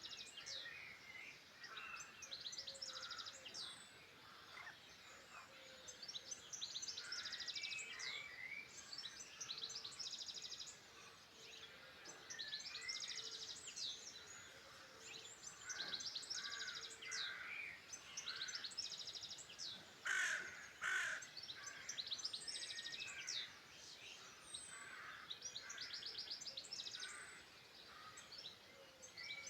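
Several songbirds singing at once, overlapping trills and warbled phrases repeating throughout. About two-thirds of the way through, two louder harsh calls stand out.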